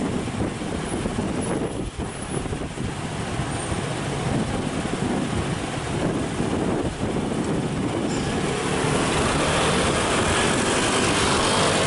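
Light rail tram approaching along the track, its running noise growing louder from about eight seconds in, over a steady background of city traffic.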